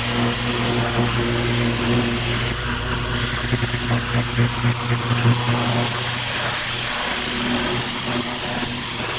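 Pressure washer's engine running steadily under the hiss of the high-pressure water jet spraying. The low hum thins out about two-thirds of the way through while the spray hiss carries on.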